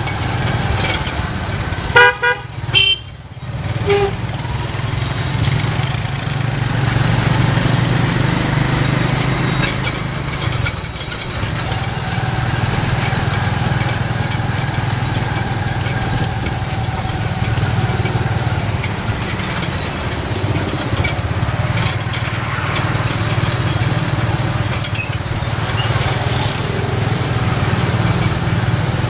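Motorbike engine of a Cambodian tuk tuk running steadily in city traffic, heard from the passenger carriage. A vehicle horn honks a few short times about two seconds in.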